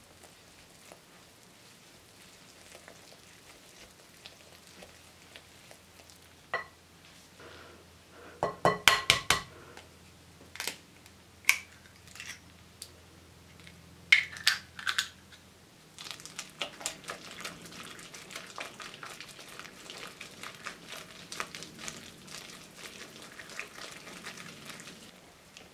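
Wire whisk beating egg into creamed butter in a glass bowl, its wires ticking rapidly against the glass through the last third. Before that come scattered single sharp clicks and a quick cluster of about five loud clicks.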